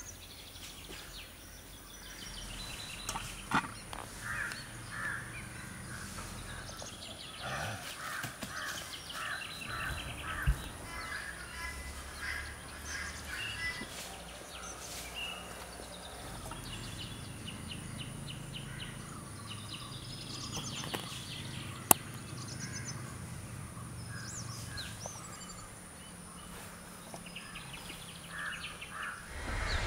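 Birds calling throughout, crows cawing among them, in repeated short calls. A few sharp knocks stand out, the loudest about two thirds of the way through.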